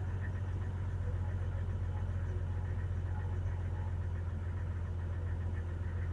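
A 1997 Jeep Cherokee's 4.0-litre inline six idling steadily while still cold, heard from the driver's seat inside the cab. It is a smooth, even low hum with no misses or changes in speed.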